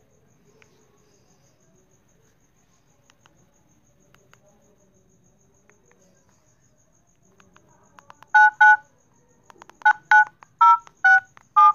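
Mobile phone keypad dialing tones as a number is keyed in: seven short touch-tone beeps, each a blend of two pitches that change from key to key, starting about eight seconds in at an irregular pace. Before them there are only faint clicks.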